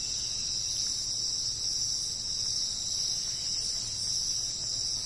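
A steady, high-pitched insect trill with no breaks, over a faint low hum.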